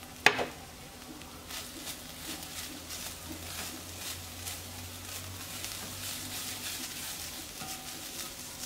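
Ground beef and onion frying gently in an enamelled cast-iron pot while being stirred with a silicone spatula: a soft sizzle with irregular scrapes and light taps. A sharp knock about a third of a second in is the loudest sound.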